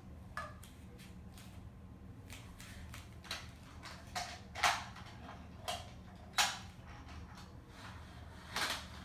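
Wooden toy railway trains and track pieces knocking and clacking as they are handled: a handful of separate sharp knocks, the loudest a little past the middle and near the end, over a low steady hum.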